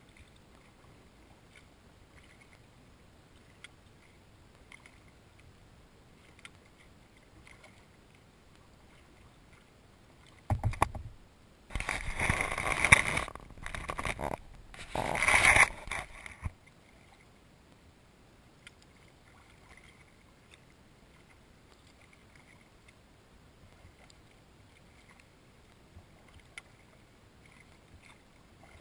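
Kayak moving through still water, faint with light ticks and drips of paddling. About ten seconds in there is a low thump, then some five seconds of loud rushing, scraping noise in two stretches, as the kayak passes close beside a cypress trunk.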